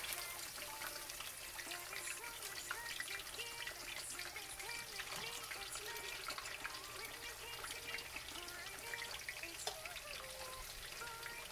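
Whole tilapia frying in hot oil in a stainless steel pan: a steady sizzle with a constant crackle of spattering oil.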